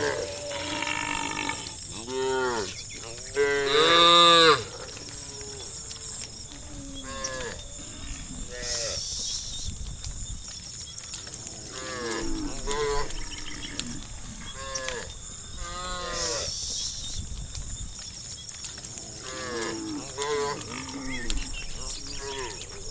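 A herd of cattle mooing, call after call from many animals, some overlapping. The loudest moo comes about three and a half seconds in and lasts about a second.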